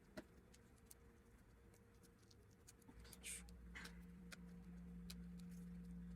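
Near silence with faint scattered clicks and small handling noises as glue and tape are worked into a cracked plastic vacuum hose. A brief hiss about three seconds in, and a low steady hum comes in about halfway and carries on.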